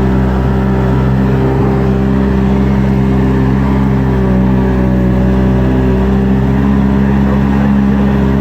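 Vehicle engine running steadily at a nearly constant speed, its pitch drifting only slightly.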